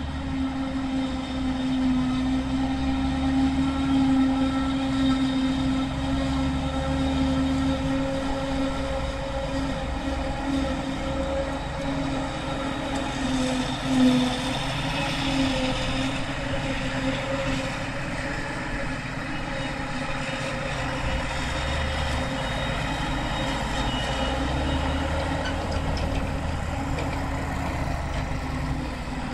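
Self-propelled forage harvester chopping grass while the tractors pulling its forage trailers run alongside. Engines and chopping drum make a continuous steady mechanical hum over a low rumble, with one brief louder surge about halfway through.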